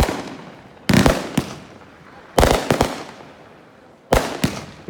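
Fireworks going off: four loud bangs, one at the start and then about every one and a half seconds. Each bang is followed by a smaller crack or two and an echo that fades away.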